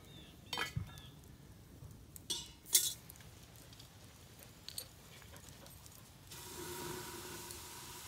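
Cast iron potjie pot lid and metal clinking against the pot a few times, the loudest clink about three seconds in. A steady hiss sets in suddenly near the end.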